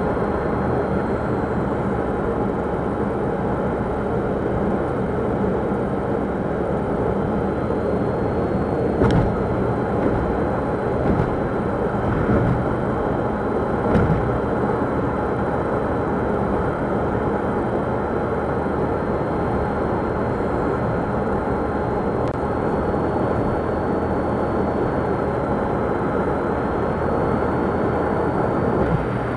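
Steady engine and road noise heard inside the cabin of a 2009 Daihatsu Move kei car (660 cc three-cylinder) while it is driven, picked up by the dashcam's microphone. A few brief thumps come in the middle.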